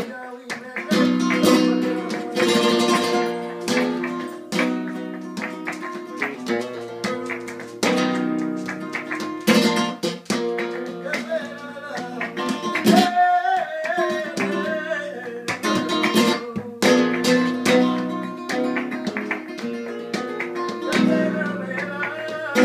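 Flamenco guitar played solo: picked melodic passages broken by sharp, loud strummed chords.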